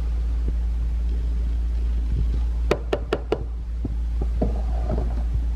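Four quick, sharp knocks close together about three seconds in, from kitchen items being handled at the crockpot, over a steady low hum.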